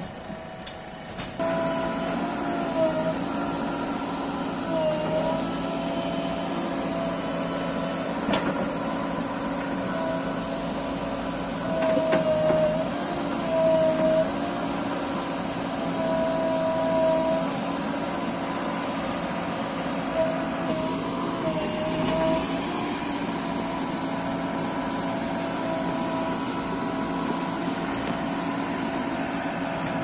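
A JCB 3DX backhoe loader's four-cylinder diesel engine running steadily at working revs, comes in about a second in. Its pitch dips briefly several times as the hydraulics take load while the backhoe arm shifts rocks, and it is loudest around the middle.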